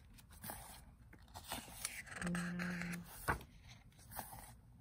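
Pages of an album photobook being turned and handled: light paper scrapes and scattered clicks, the sharpest click a little past halfway. A brief steady hum sounds just before that click.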